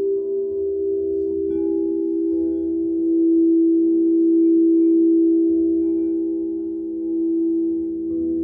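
Frosted quartz crystal singing bowls ringing together in a steady, overlapping drone, played with a mallet. A higher tone joins about one and a half seconds in, and the sound swells gently a few seconds later.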